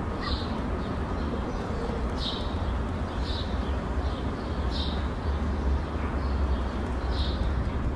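Outdoor ambience: a steady low rumble with short high chirps, likely birds, recurring every second or so.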